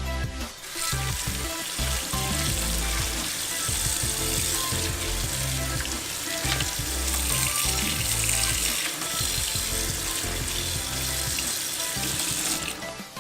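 Background music with a steady rushing hiss over it, starting about a second in and stopping shortly before the end.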